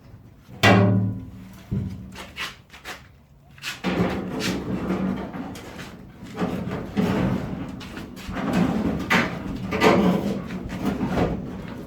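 A heavy clunk with a short ring about a second in, a few lighter knocks, then background music with a steady beat from about four seconds in.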